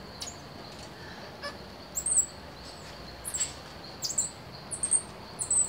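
Squirrel monkeys giving short, very high-pitched chirps, a few at first and then coming more often in the second half, the loudest about two seconds in. A steady high insect drone runs underneath.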